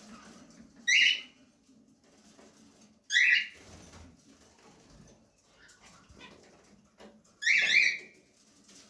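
Pet finch calling: three loud, short high-pitched calls a few seconds apart, the last one longer than the others.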